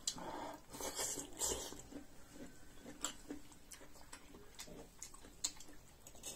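Close-up eating sounds: chewing in the first couple of seconds, then a few sharp, separate clicks of a metal fork and spoon against a large iron wok.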